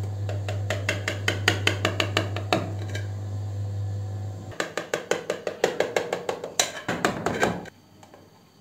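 Background music with a quick, light percussive beat and plucked notes, which stops near the end.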